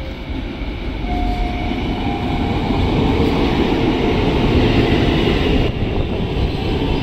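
Former Tokyo Metro 6000 series electric commuter train running into the station, its wheels and running gear growing louder as the cars draw alongside.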